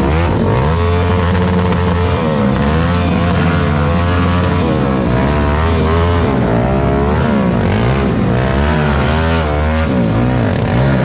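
Racing ATV engines revving hard, several at once, their pitch climbing and falling as the quads throttle on and off.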